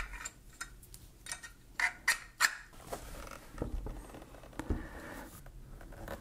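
Small clicks and scrapes of an Allen wrench working the screws on a vertical laptop stand's adjustable dock, followed about three and a half seconds in by a few dull knocks as a laptop is set into the stand's slot.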